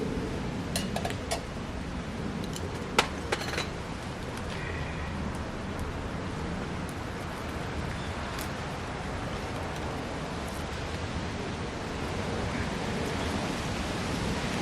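Wood fire burning in a backyard fire pit: a steady rushing noise with a few sharp clicks and snaps, mostly in the first few seconds.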